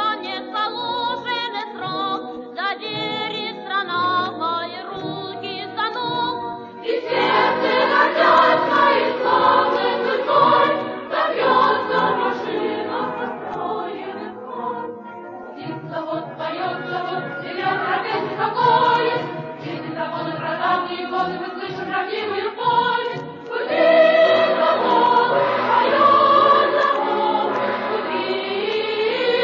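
Choir singing a song. It swells louder about a quarter of the way in, drops back near the middle, and swells again near the end.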